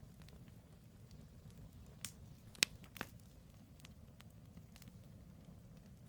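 Campfire of burning firewood crackling: a few sharp pops, three of them close together in the middle and the loudest about two and a half seconds in, over a low steady rumble.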